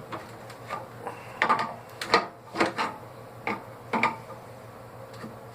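Adjustable wrench working a brass valve fitting loose on an air compressor: a string of irregular metal clinks and knocks as the wrench is set, turned and reset.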